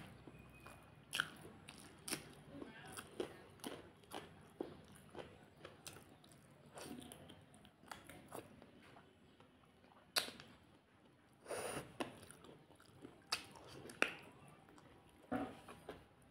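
Close-miked chewing of a mouthful of rice and chicken curry, with wet lip smacks coming irregularly several times a second. A few longer, louder mouth sounds come about ten, eleven and fifteen seconds in.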